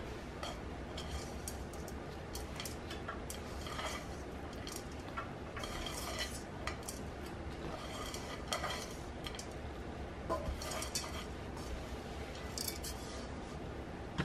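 Hand scooping gritty potting mix out of a stainless steel pot: soft, irregular scrapes and light clinks of soil against the metal.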